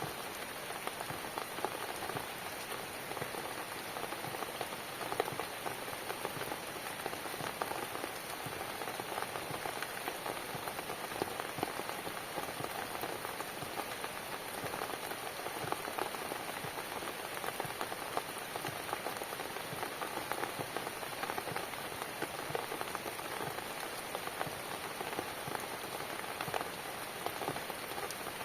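Steady rain falling on a cabin: an even hiss made up of many separate drop ticks, with no let-up or change.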